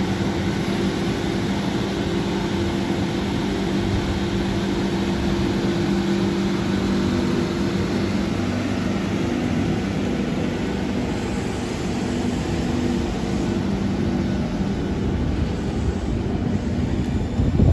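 Sydney double-deck electric train standing at the platform, its onboard equipment humming steadily with several low tones. A loud knock sounds near the end.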